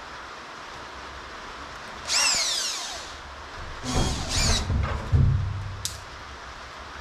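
Cordless drill running in short bursts against a piece of MDF as the board is fixed over a vent hole. First comes a run whose pitch falls away as the motor winds down, then two quicker bursts and a louder, deeper one, and a sharp click near the end.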